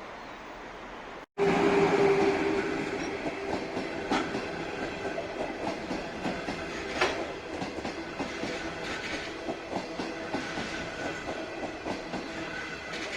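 Train passing at close range, its wheels clattering over the rail joints with irregular clanks. It comes in suddenly, loudest at first, about a second in, after a short dropout over a steady background hiss.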